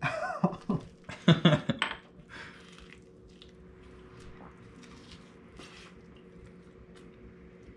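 Quiet kitchen handling sounds: scattered soft clinks of dishware and utensils and chewing over a steady faint hum, with a man's voice briefly in the first two seconds.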